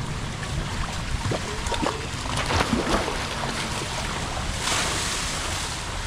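Wind buffeting the microphone over splashing pool water, with a cluster of sharper splashes about two and a half seconds in and a brief hiss of water near five seconds.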